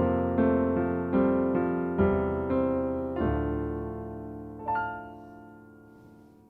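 Piano closing out the song: a few slow chords, then a final chord left to ring and fade away, with one high note struck near the end.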